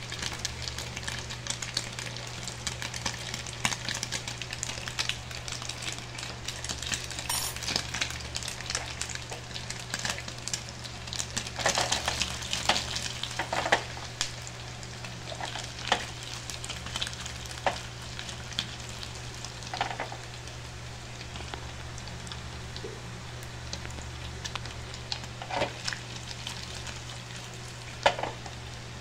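Sausages frying in hot oil in a pan, sizzling and crackling, busiest in the first half and thinning out later, with a few louder sharp clicks.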